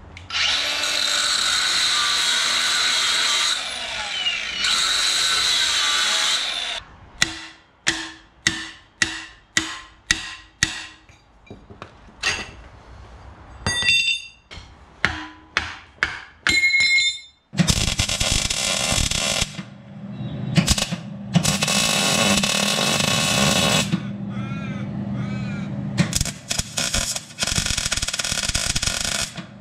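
Workshop metalwork: a power tool runs for several seconds, then a string of sharp metal knocks and clinks, roughly two a second, some of them ringing. The second half is long loud stretches of welding.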